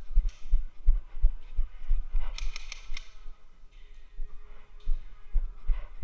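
Dull low thuds in a steady rhythm, about three a second, with a quick run of sharp clicks between two and three seconds in.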